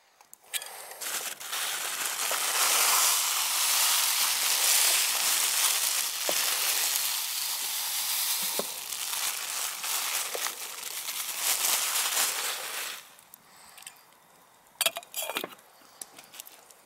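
White granules poured in a steady stream from a crinkling plastic bag into a metal camping pot with a little water, a long hiss lasting about twelve seconds. It stops suddenly, and a few sharp clinks follow near the end as the metal lid goes on the pot.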